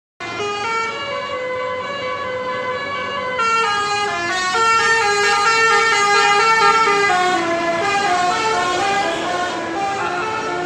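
Tour bus's basuri musical air horn sounding a melody: a loud run of held horn notes stepping from one pitch to the next, some overlapping. It grows louder a few seconds in and cuts off suddenly near the end.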